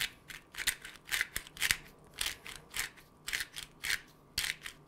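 Pepper mill grinding black peppercorns, twisted by hand: a steady run of short crunching rasps, about three a second.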